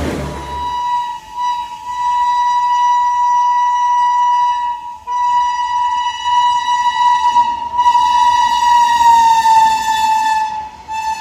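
Indian Railways train horn sounding one long, held note, briefly broken about a second in and again about five seconds in, its pitch dropping slightly near the end.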